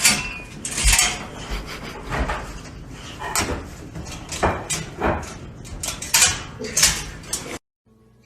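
A string of irregular clattering knocks, hard objects striking or being knocked about, that stops abruptly about a second before the end.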